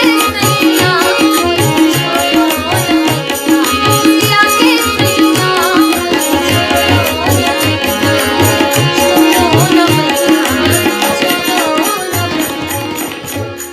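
Devotional bhajan music: tabla keeps a steady rhythm under a melody line. Just before the end the tabla stops and the last held notes fade away.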